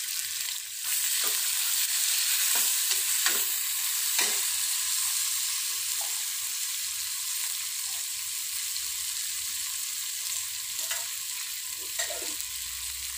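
Sliced onions with garlic and cumin frying in a steel kadai on a gas burner, a steady sizzle as they are cooked toward light brown for kadhi. Steel utensils clink against the pan now and then.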